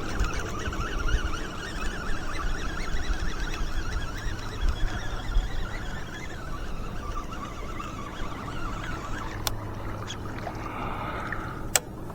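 Water splashing and trickling around a fishing kayak, with a few sharp clicks near the end.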